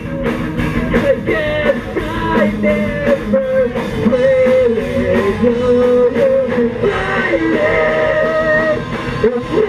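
A live emo/math-rock band playing: electric guitar, bass and drums, with a voice singing over them.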